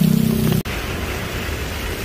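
Music cuts off abruptly about half a second in, giving way to a steady hiss of rain and passing traffic.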